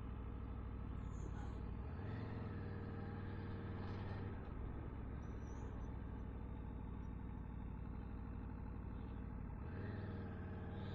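Aprilia Tuono V4's 1077cc V4 engine running under way at a steady, low pace, with small changes in throttle about 2 s in, about 4.5 s in and near the end.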